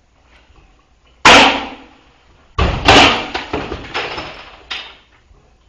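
Objects thrown into a spinning ceiling fan being struck by the blades: a sharp whack about a second in, then a louder crash with a string of clattering knocks that dies away over a couple of seconds.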